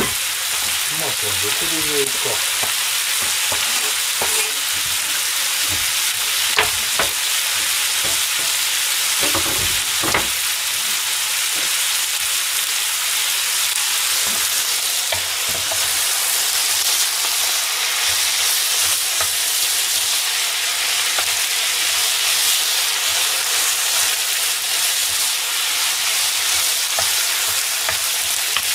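Chopped onion, celery and minced meat sizzling steadily in oil in a frying pan over high heat, with a few light knocks and, near the end, a wooden spatula stirring the vegetables.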